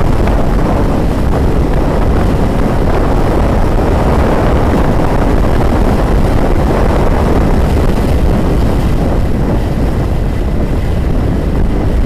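Steady wind rush and road noise on the microphone of a helmet camera aboard a moving motorcycle.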